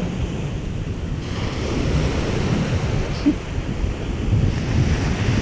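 Small surf waves washing onto a sandy beach, with wind buffeting the microphone.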